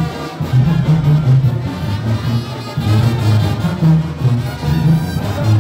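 Brass band playing: a tuba bass line in even steps under trumpets and trombones.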